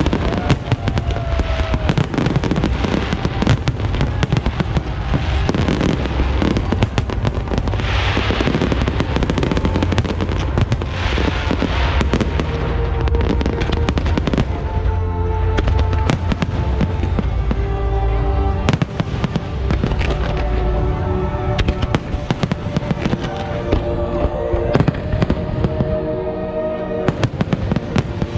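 Fireworks display going off without pause: deep booms under dense crackling, with two hissing bursts about eight and eleven seconds in.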